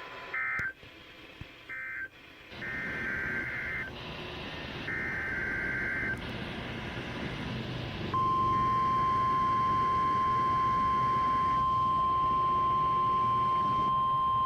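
Emergency Alert System broadcast over NOAA Weather Radio: several short buzzy digital data bursts (SAME codes) about a second apart. About eight seconds in, NOAA Weather Radio's single steady 1050 Hz warning alarm tone begins and holds.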